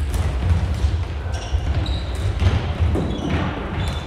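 Floorball game sounds echoing in a sports hall: scattered clacks of sticks on the plastic ball and floor, and short squeaks of players' shoes on the hall floor, over a steady low rumble.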